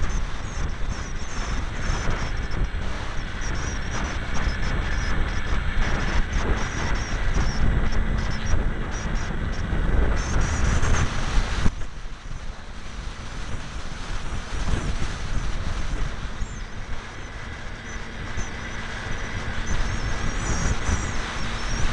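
Electric motor and propeller of a ParkZone T-28 Trojan foam RC plane running in flight, heard through its onboard camera, with heavy wind buffeting the microphone. The rush drops suddenly about twelve seconds in.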